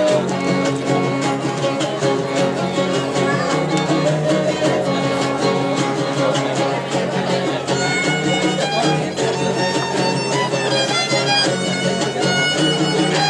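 Huastecan string trio playing: a bowed violin melody over strummed jarana and guitar chords. The violin's higher notes stand out more from about eight seconds in.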